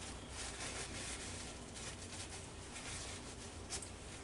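Paper towel rustling and crinkling in the hand, faint, in a few soft strokes with a sharper one near the end.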